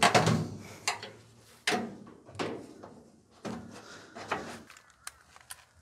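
Sheet-metal top panel of an Electrolux clothes dryer being handled and lowered onto the cabinet: a string of clunks and knocks, about seven, the loudest right at the start.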